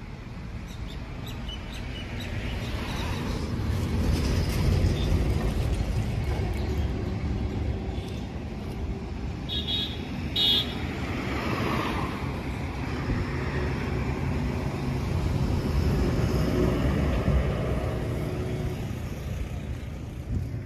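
Road traffic passing close by, the noise of vehicles swelling and fading twice, with two quick horn toots about halfway through.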